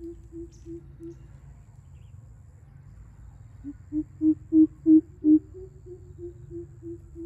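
A greater coucal, the caged decoy, hooting in a series of deep, evenly spaced hoots, about three a second. A run of six much louder hoots comes near the middle, between fainter series before and after, over a steady low rumble.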